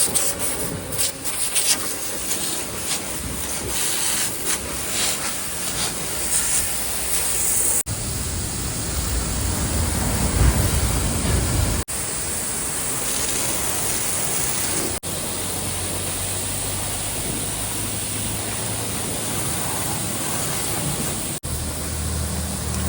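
High-pressure water spray hissing against the excavator's metal, flickering in the first few seconds and then steadier, across several cut-together clips. From about two-thirds of the way through, a steady engine hum runs under the spray and grows stronger near the end.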